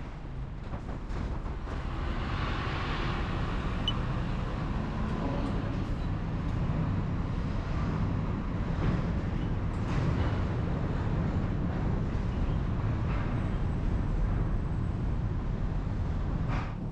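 Steady low rumble of heavy engines running, with a constant hum. It gets a little louder about two seconds in.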